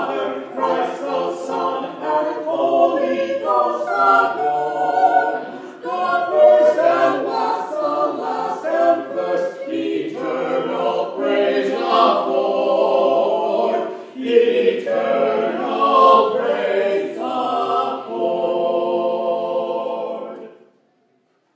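Mixed vocal quartet of two women and two men singing a cappella. The phrases end on a held chord near the end, then the sound stops abruptly.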